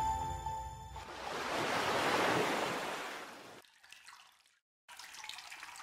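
Background music ends about a second in, and a rushing, splash-like whoosh sound effect swells and fades over the next two and a half seconds. A faint hiss follows near the end.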